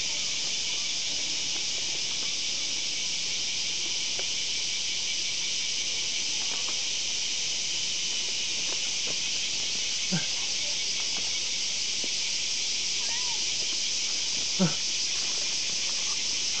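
A dense chorus of cicadas singing steadily and unbroken. Two brief squeaks cut through it, about ten and fifteen seconds in.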